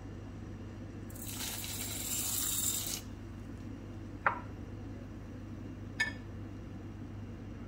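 Dry homemade vermicelli poured from a small tea glass into a pot of lentil soup: a hissing rush of about two seconds. Then two short sharp clicks, under two seconds apart.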